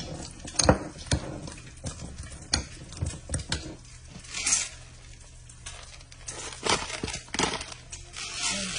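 A metal fork mashing avocado in a bowl, its tines knocking and scraping against the bowl in irregular clinks. Near the end, a pepper grinder being twisted, a short grinding rasp.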